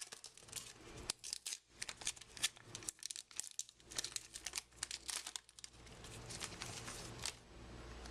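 Plastic foil wrapper of a baseball card pack crinkling and tearing as the pack is opened, with dense sharp crackles that thin out to softer rustling after about five seconds.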